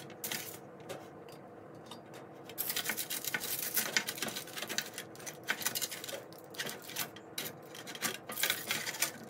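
Spatulas scraping under toasted egg bread on a foil-lined metal baking tray, the aluminium foil crinkling in a run of small scratchy crackles that gets busier about two and a half seconds in. A faint steady hum sits underneath.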